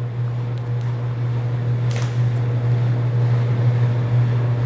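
Bluedog BWS-80 HD industrial wire stripping machine running steadily with a low hum, with one light click about two seconds in.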